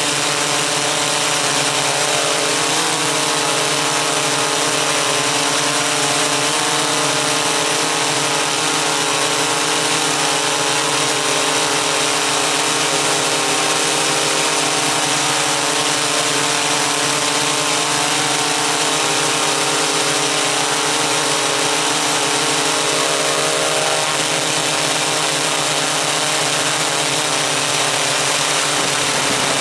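Electric motors and propellers of a MikroKopter Koax-Quadro X8 octocopter, heard from its onboard camera, giving a steady multi-tone hum while it hovers. The pitch shifts slightly now and then as the motors adjust their speed.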